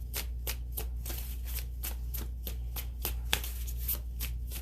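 Tarot deck being shuffled by hand: a steady run of quick card snaps, about three a second, one louder than the rest late on, over a low steady hum.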